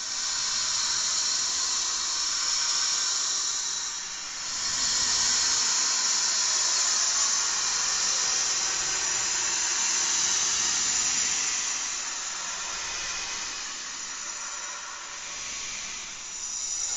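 A horror sound effect: a continuous hissing noise, strongest in the upper range. It dips briefly about four seconds in and swells again near the end.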